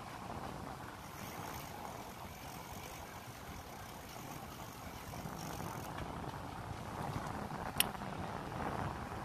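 Wind buffeting the microphone over the steady rumble of a bicycle rolling along a city street, with one sharp click near the end.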